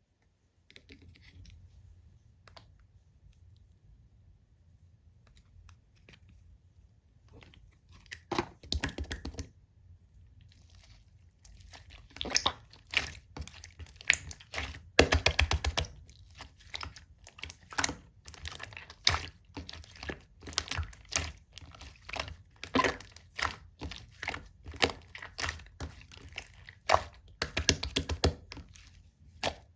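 Clear, thick slime being handled, pressed and squeezed, giving sharp wet clicks and pops. There are only a few faint clicks at first, then dense clicking from about eight seconds in.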